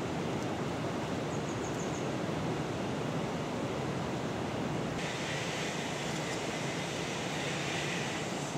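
Steady outdoor background noise, an even rush with no distinct events; about five seconds in, a higher hiss switches on abruptly and stays.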